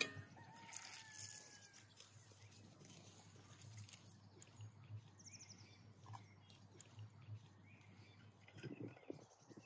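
Near silence outdoors, with faint bird chirps.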